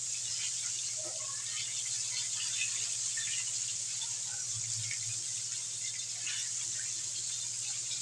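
Chicken pieces deep-frying in hot oil in a wok: a steady sizzle with scattered crackles and pops.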